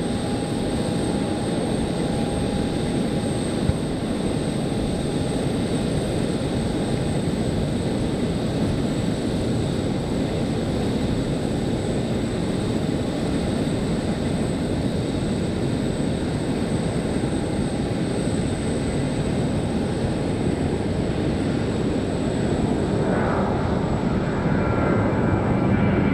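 Boeing 737 jet airliner's engines at takeoff power through the takeoff roll and climb-out: a steady jet roar with a thin high whine on top, growing a little louder near the end.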